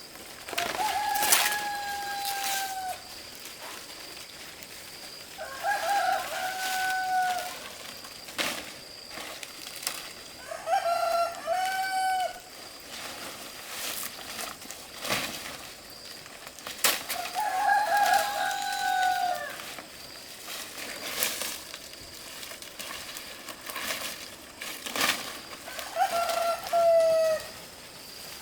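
Roosters crowing, five crows spaced several seconds apart, each with a drawn-out falling end, with scattered sharp knocks in between.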